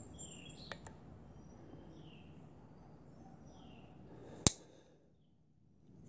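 Faint bird chirps, a few short falling notes, under a quiet background hiss. Near the end, a single sharp click from the Case Texas Jack pocket knife being handled.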